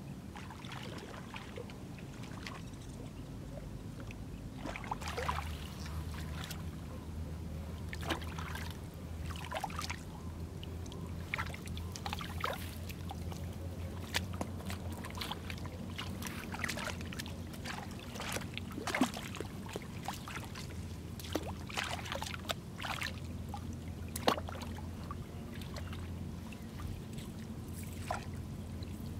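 Shallow muddy water splashing, sloshing and dripping in irregular bursts as hands move through it and a wet cast net is lifted and handled, with a low steady hum underneath from about five seconds in.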